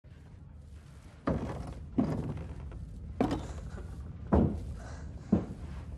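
Heavy boots on a wooden ladder and deck boards: five slow thuds about a second apart, each with a short ring, over a steady low rumble.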